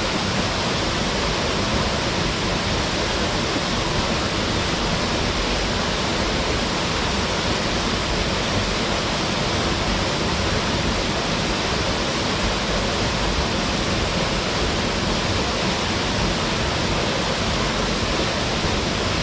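Waterfall crashing into its plunge pool: a steady, full roar of falling water with no breaks or changes.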